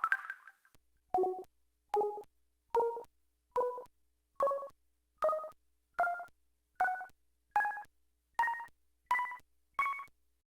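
LG Cyon KH1000 mobile phone playing its built-in system tones through its Yamaha MA-5 sound chip: after the end of a short falling chime, twelve short beeps about 0.8 s apart, each a step higher in pitch than the last.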